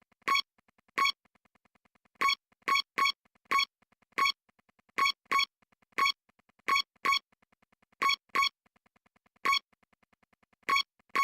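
Short electronic beeps, all on the same high note, sounding at uneven intervals, about seventeen in all, over a very faint, fast, steady ticking.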